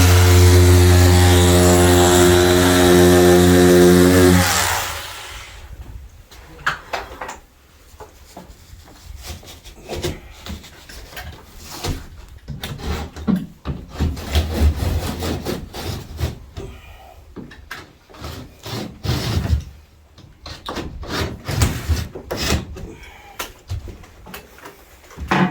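A power tool runs steadily with an even hum and cuts off about four and a half seconds in. After that come irregular knocks, scrapes and rubbing from work on the plasterboard ceiling.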